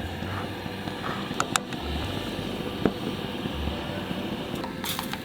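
Wood campfire crackling, with a few sharp pops and a quick run of pops near the end, over a low steady rumble.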